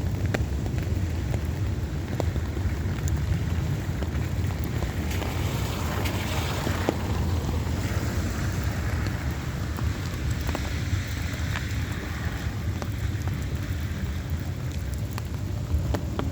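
Heavy rain falling steadily over a low rumble of wind on the microphone, with scattered drop clicks. A higher hiss swells and fades about five to eight seconds in.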